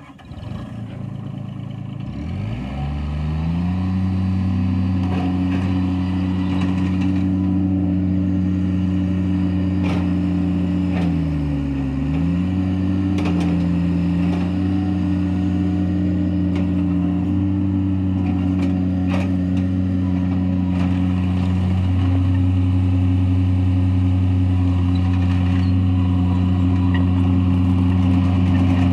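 Bobcat MT52 stand-on mini track loader's diesel engine running: it rises in speed from a low idle about two seconds in and then holds steady at a higher speed. Near the middle the engine speed dips briefly and recovers, and a few sharp clanks sound over it.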